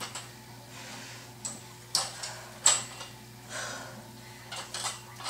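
A few sharp, irregular clicks and knocks, about five in all with the loudest near the middle, as a metal-framed dip station is handled and set up for reverse pull-ups.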